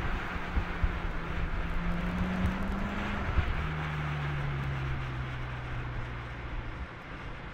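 BMW M5's twin-turbo V8 driving along, its engine note rising slowly, then dropping about three seconds in and easing steadily lower. Steady tyre and wind noise runs underneath.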